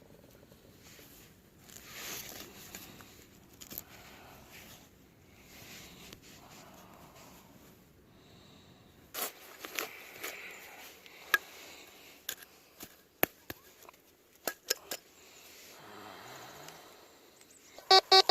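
Scattered sharp clicks and knocks over low hiss, then near the end a few loud, short pulsed beeps typical of a Tesoro Mojave metal detector signalling a target.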